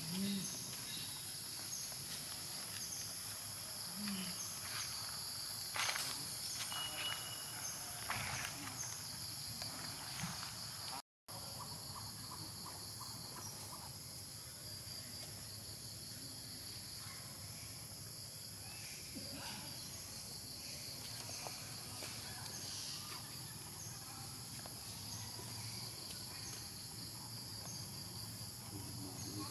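A steady, high-pitched insect chorus outdoors, with scattered light clicks and rustles. The sound drops out for a moment about eleven seconds in.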